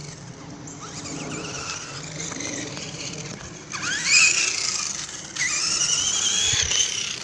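Battery-powered RC car's electric motor whining as the car is driven, the pitch climbing as it speeds up: a sharp rising whine about four seconds in, then another from about five and a half seconds in that holds for over a second. This is the car's first run.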